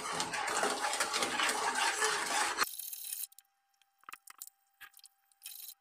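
Slotted steel spoon stirring and scraping in a steel kadhai as sugar is mixed into boiled milk: a quick, continuous scraping that cuts off suddenly about two and a half seconds in, followed by a few faint clicks.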